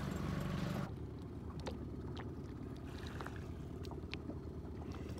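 Small boat drifting on calm sea: a low rumble of water with faint scattered ticks and slaps against the hull. A steady low hum in the first second cuts off abruptly.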